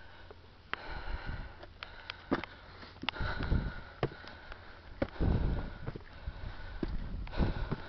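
A person breathing hard and heavily close to the microphone, out of breath from a steep climb, in irregular surges, with scattered clicks and knocks of handling or steps.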